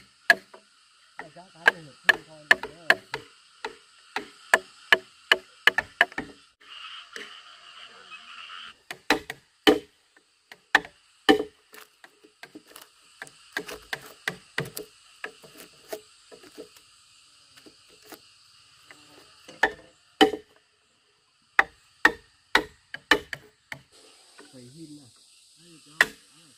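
A hand tool striking wood: sharp knocks in quick runs of about two to three a second, with short pauses between runs.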